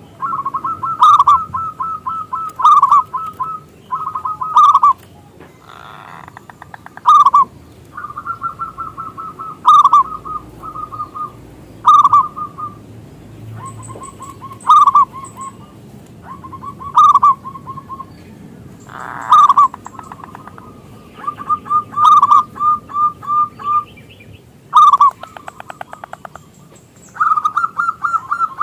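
Zebra dove (perkutut) cooing: repeated runs of quick staccato notes, each run opening with a loud note, about every two seconds.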